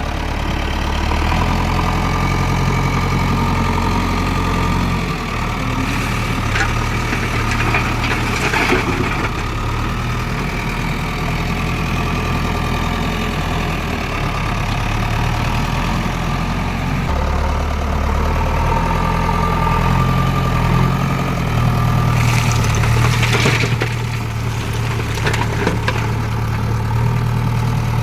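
JCB 3DX backhoe loader's diesel engine running while loading, its pitch shifting up and down several times as the load changes. Two spells of knocks and clatter come through, one about a quarter of the way in and one near the end.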